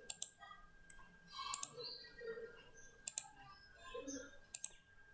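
Computer mouse clicks, mostly in quick pairs about every second and a half, as faces are picked on screen.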